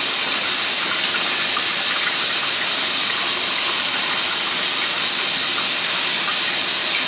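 Loud, steady hiss.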